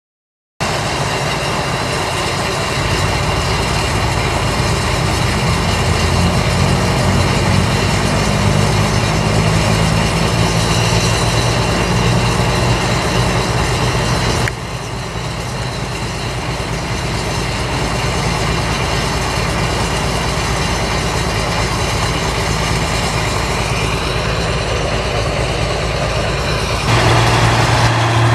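New Holland 1545 S combine harvester running steadily as it harvests rice, a continuous engine hum. The sound changes abruptly about halfway and again near the end, where a deep hum gets louder.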